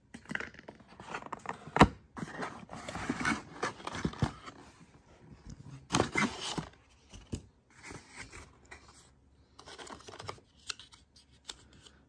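Packaging being handled: a moulded plastic insert tray and cardboard inserts lifted and moved in a hair dryer's carry case, a string of irregular scrapes and rustles with some tearing. A sharp knock comes a little under two seconds in.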